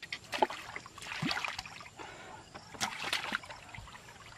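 Shallow muddy water splashing and trickling as hands grope through it for fish, in irregular splashes, the loudest about half a second in and again near three seconds in.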